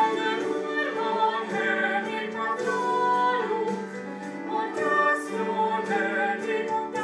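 Operatic singing with musical accompaniment: a voice holding notes that move from pitch to pitch over a steady low tone.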